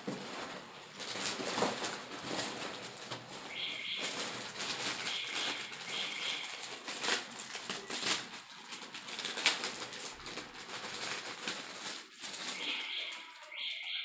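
Black plastic bag crinkling and rustling against a cardboard box as a wrapped crossbow is pulled out and unwrapped by hand, with many short sharp crackles.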